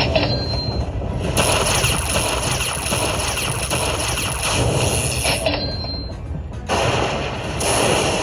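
Slot machine game sounds: a dense, rattling reel-spin effect that stops with a short high chime about five and a half seconds in, then starts again about a second later.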